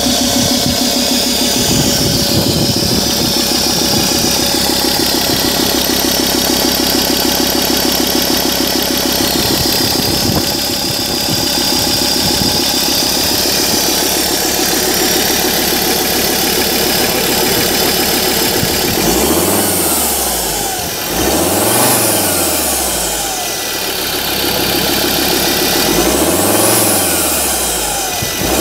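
2013 Mazda BT-50's 3.2-litre five-cylinder turbo-diesel running, idling steadily. In the last ten seconds it is revved up and let fall back to idle three times.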